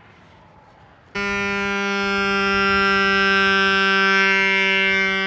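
Portable electric bicycle pump switching on about a second in and running with a really loud, steady buzzing hum of unchanging pitch, inflating a punctured and repaired rear tyre.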